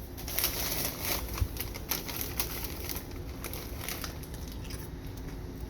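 Lay's chip bag crinkling as a hand reaches in for a chip, a crisp crackling that is busiest in the first three seconds and then thins out.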